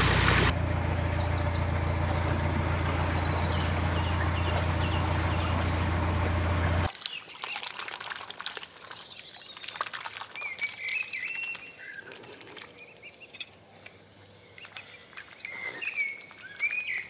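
A narrowboat's engine running steadily with a low hum, stopping abruptly about seven seconds in. After that, small birds chirp and twitter.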